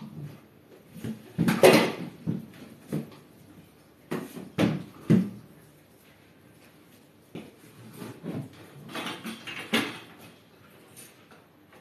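Scattered knocks, clatters and rustles of objects being handled, with no steady machine noise; the loudest comes about a second and a half in and others follow near the middle and near the end.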